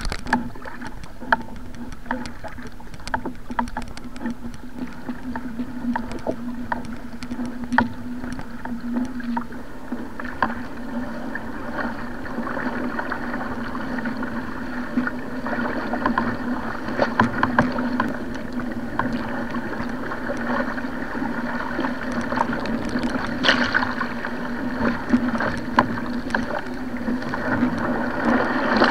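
Water splashing and rushing around a surfski paddled through choppy sea, with irregular slaps and splashes from the paddle and the chop against the hull over a steady low hum. The water grows louder and busier about ten seconds in.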